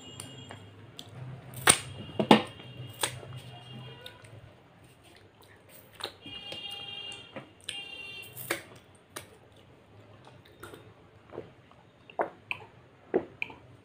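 Wet mouth smacks and clicks from licking food off fingers after eating by hand, a scattering of sharp ticks, with a few short squeaky tones in the middle. Near the end come sips and gulps of water from a steel tumbler.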